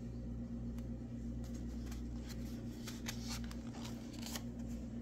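A picture book's paper page being turned, a short run of soft rustles and crinkles in the middle, over a steady low hum.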